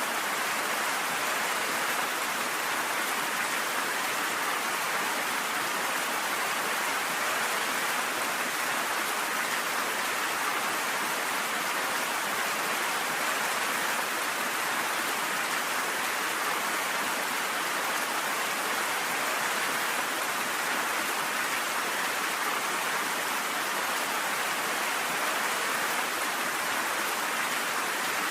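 Steady rain falling, an even hiss that does not change, with no thunder.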